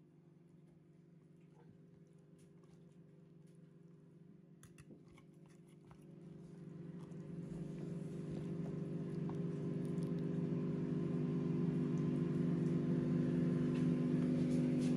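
A steady low hum made of several fixed tones, growing gradually louder from about six seconds in, with a few faint clicks about four to five seconds in.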